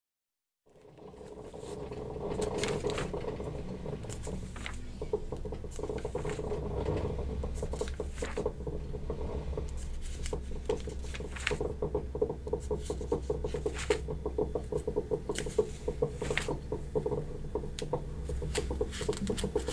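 Indoor room tone with a steady low hum, fading in under a second in, and scattered light ticks and taps at irregular intervals.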